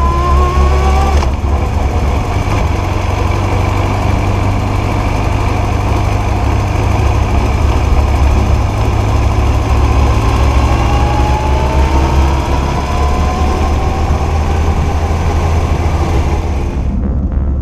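Motorcycle engine running under way, with road and wind noise. Its pitch rises as it accelerates at the start, breaks about a second in, and climbs again from a little past the middle.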